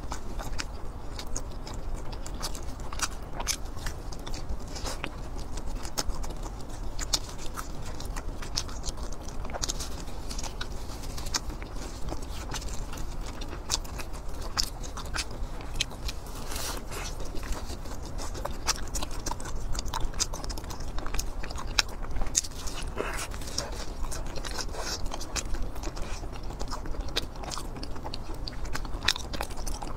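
A person chewing and biting food close to a clip-on microphone: a dense, irregular run of short wet mouth clicks.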